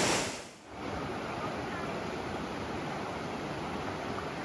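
Rushing water of a small rocky cascade fades out in the first half second. Then a wide, shallow river runs steadily over rocks.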